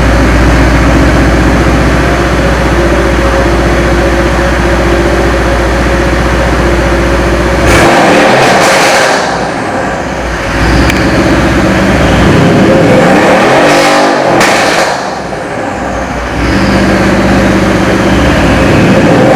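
Mercedes-Benz car engine running at a steady idle, then revved several times from about eight seconds in, its pitch rising and falling with each blip.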